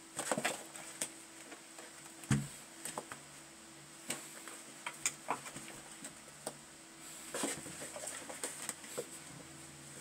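Cats' claws scratching and scuffling on a rough doormat and carpet, with the mat rustling and dragging in irregular spells. A dull thump comes about two seconds in.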